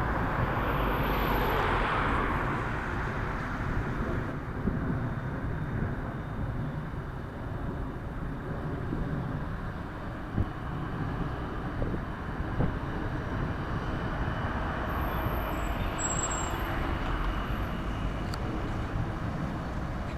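Rubber-tyred T6 tram running along its guided track: a steady rolling rumble with a few light clicks, a little louder in the first few seconds, and a faint high whine near the end.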